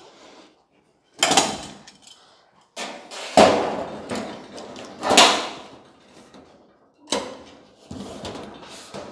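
A hand-shaped sheet-metal roof panel shifting and knocking against the truck cab as it is pressed into position: about five short metallic scrapes and knocks with brief pauses between them.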